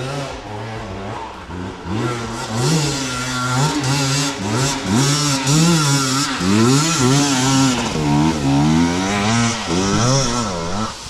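KTM 450 SX-F single-cylinder four-stroke motocross engine revving hard on and off the throttle under load on a steep climb. The revs rise and fall in quick swells, about once or twice a second, and get louder about two seconds in.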